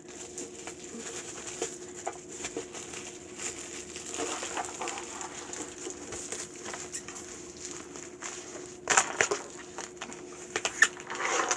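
Packaging on a flat-pack furniture part being torn and pulled open by hand, using fingernails rather than a knife: rustling, scratching and ripping, with a few louder rips and knocks about nine seconds in.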